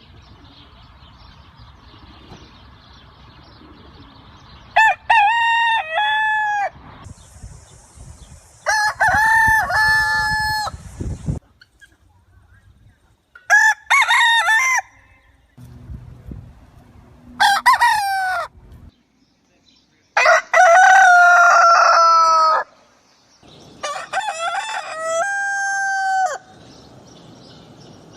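Roosters crowing: about six separate cock-a-doodle-doo crows a few seconds apart, each lasting one and a half to two and a half seconds, with the background changing between crows.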